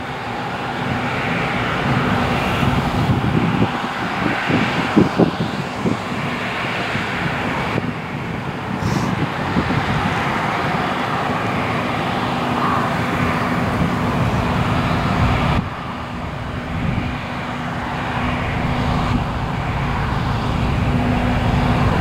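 Claas Lexion 600 TT combine harvester running steadily while cutting oilseed rape, a continuous engine and threshing drone with a steady hum. The sound changes abruptly twice, about a third and two-thirds of the way in.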